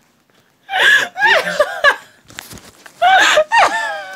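High-pitched laughter in two bouts of short bursts, about a second in and again near the end, with a pause between.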